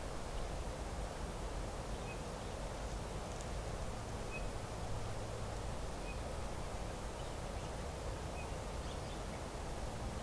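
Steady outdoor background hiss in open country, with a faint short high chirp about every two seconds.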